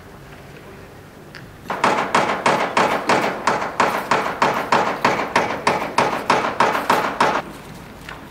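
Quick, even knocks, about four a second for some six seconds, from tool work on the main landing gear of a Mitsubishi A6M5 Zero fighter being assembled.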